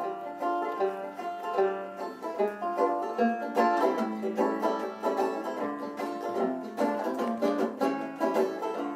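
Instrumental music led by a quickly picked banjo, with no singing.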